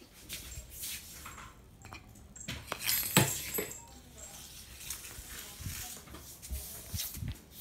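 Scattered taps, knocks and rustling from a cat playing with a small toy ball on a wooden laminate floor. A sharp knock about three seconds in is the loudest.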